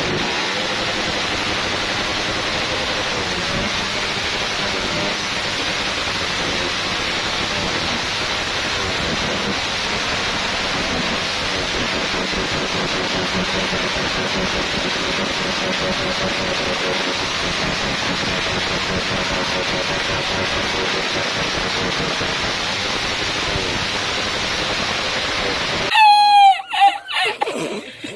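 Drag-style motorcycle engine with an open straight exhaust running at steady high revs, so loud it comes through as a steady rushing noise with a faint wavering engine tone. About two seconds before the end it cuts abruptly to a man laughing loudly.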